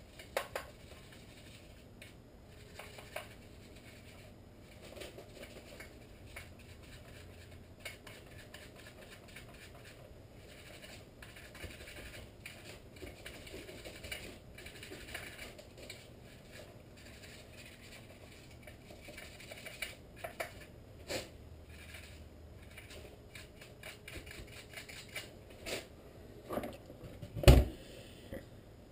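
Small clicks, scrapes and rustles of chainsaw parts and tools being handled and cleaned, with a few sharper clicks around two-thirds of the way in. Near the end comes one loud heavy thump as the Husqvarna 455 Rancher chainsaw is set down on the wooden workbench.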